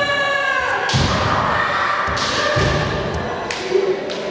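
A kendo fighter's drawn-out kiai shout that tails off about a second in, followed by a few heavy thuds of stamping feet on the wooden floor and sharp clacks of bamboo shinai.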